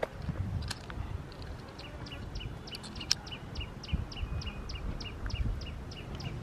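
A small bird calling over and over in a quick, even rhythm of short high chirps, about three a second, over a low rumble of wind or handling on the microphone. There is a single sharp click about three seconds in.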